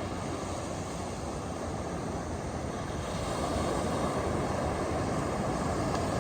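Ocean surf breaking on a beach: a steady, rushing rumble that swells a little louder about halfway through.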